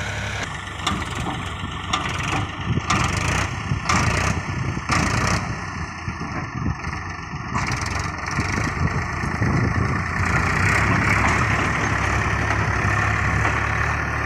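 Heavy diesel engine running steadily, with a string of sharp knocks and clatters over its first nine seconds or so, then a steadier, brighter running sound.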